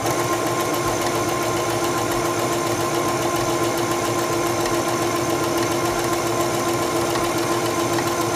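Singer Stylist 7258 computerized sewing machine stitching a serpentine stitch, running at a steady speed with an even mechanical hum. It starts at once and stops near the end.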